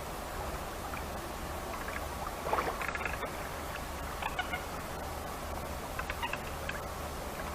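Short animal calls in three brief clusters over a steady background hiss.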